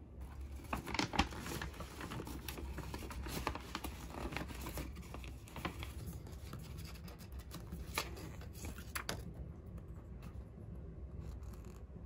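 Paper rustling and crackling as a paper bag and printed leaflets are handled and opened out, in irregular sharp crackles, loudest about a second in and again near eight seconds.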